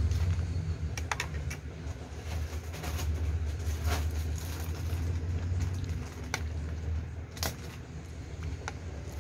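Scattered light clicks and taps of a metal spoon and fingers against a ceramic bowl and plate as someone eats rice and mussels by hand. Under them runs a steady low hum.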